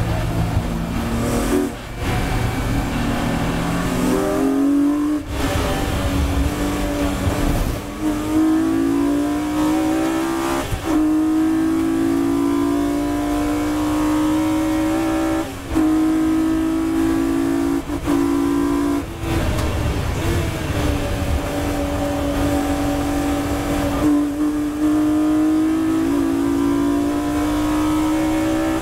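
BMW E36 M3 race car's straight-six engine heard from inside the cabin, accelerating hard at full throttle. The pitch climbs and then breaks off briefly at each gear change or lift, over steady road and wind noise.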